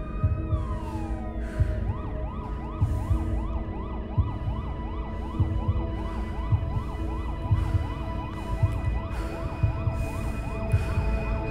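Emergency-vehicle siren: a long wail that winds down about a second in, then switches to a fast yelp going up and down about twice a second, over a low rumble with irregular dull thuds.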